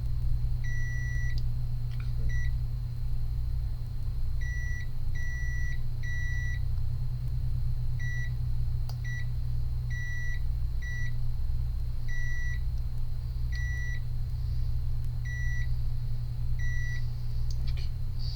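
About a dozen short electronic beeps of uneven length at irregular intervals, over a steady low hum from running bench equipment at an electronics repair bench. A couple of light clicks.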